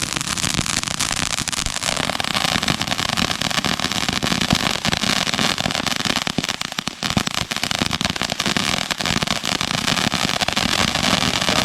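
Consumer firework going off in a steady, dense crackle of many small pops with no single big bang.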